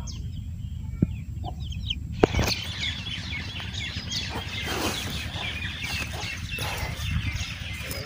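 Birds calling: many short chirps with clucking among them, a couple of soft knocks, and busier calling from about two seconds in.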